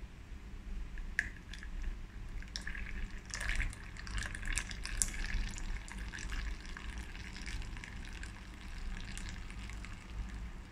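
Frothed milk poured in a thin stream from a milk frother jug into a glass of espresso: a soft trickling patter of small drips and splashes that starts about a second in and grows busier a few seconds later.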